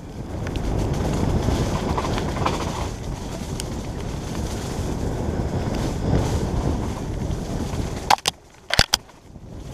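Mountain bike rattling and rumbling over a rough trail, heard from a GoPro Hero 3 on the rider. At about eight seconds the rumble drops away and a few sharp clicks follow.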